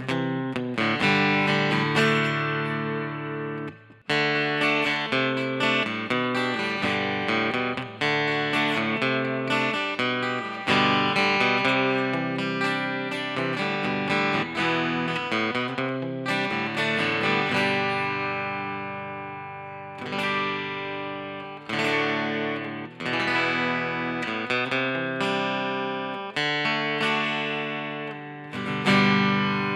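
Fender Santa Rosa acoustic guitar played through a solid-state amplifier: chords strummed and picked in a continuous passage, with a short break about four seconds in and some chords left ringing to fade.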